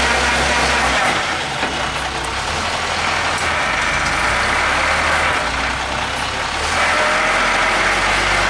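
Heavy tank truck's diesel engine running under load on a climb, a steady low rumble with a hiss of tyre noise from a drive wheel. The rumble eases about a second in and builds again.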